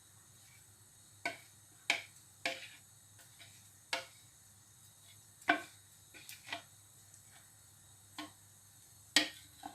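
A spoon clinking against a bowl and a small jar as honey, lemon and ginger syrup is spooned into the jar: sharp clinks at irregular intervals, about nine in all.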